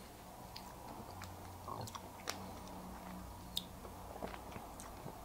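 Faint wet mouth sounds of someone sucking on a hard sour mint (apple Ice Breakers Sours), with a scatter of small clicks as it moves against the teeth.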